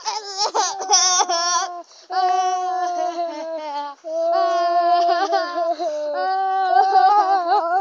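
A child's high voice singing loud, long held notes close by, in about four drawn-out phrases with short breaks between them.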